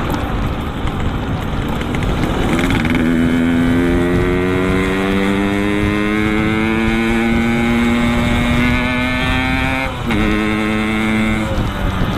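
Yamaha RX-King's two-stroke single-cylinder engine, breathing through a Boban C33 aftermarket exhaust, pulling under acceleration with its note climbing steadily for several seconds. The note drops at a gear change about ten seconds in, then climbs again briefly.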